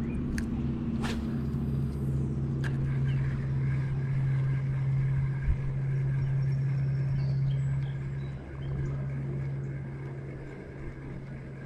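A steady low engine hum, like a motor vehicle running, that grows fainter over the last few seconds, with a few light clicks near the start.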